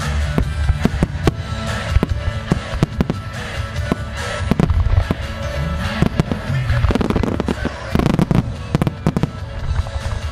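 Fireworks shells bursting one after another with sharp bangs and crackle, the bursts coming thickest in the last few seconds, over a pop song with singing.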